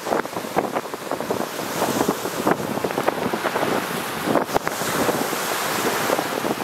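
Lake Superior waves breaking and washing over a rocky, pebbly shore, with wind buffeting the microphone.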